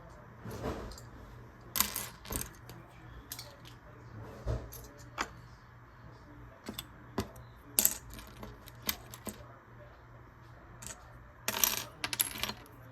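Small plastic Lego pieces clicking and clattering as they are handled: irregular sharp clicks, with a denser clatter near the end.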